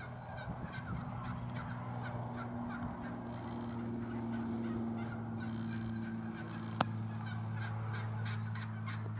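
Wild turkey toms gobbling and calling, with a sharp click about seven seconds in.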